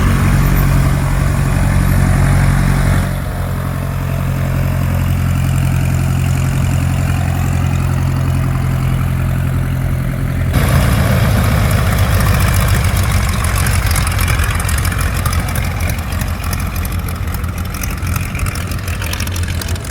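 Propeller-driven piston aircraft engine running steadily at low power. The sound shifts abruptly about three seconds in, and again about ten seconds in, after which it is louder, with a fast throbbing beat and more rushing noise.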